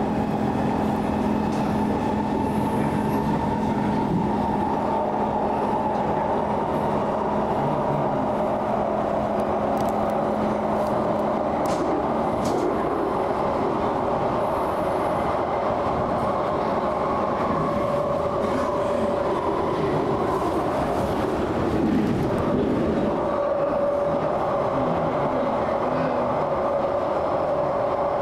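SMRT East–West Line metro train running at speed, heard from inside the car: a steady rumble of wheels on rail with motor tones over it. A low steady hum cuts out about twelve seconds in, and near the twenty-two-second mark a tone briefly dips and rises again.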